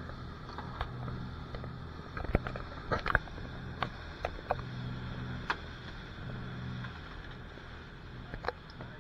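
Motorboat engine running at speed with a steady low drone, with scattered sharp knocks and clatters, the loudest about two and three seconds in.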